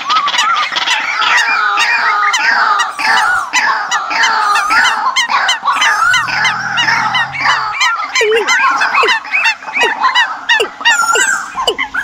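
Recorded decoy bird calls: a dense chorus of many overlapping, quickly repeated calls. About eight seconds in it thins to sparser calls with sharp falling notes.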